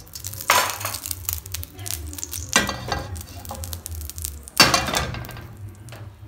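A metal frying pan being handled on a gas stove grate: three short clattering scrapes, the last one loudest, over a steady low hum.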